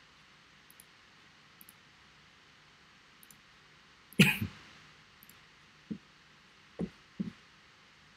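A single cough about four seconds in, over a faint steady hiss, followed by three short, low, soft sounds.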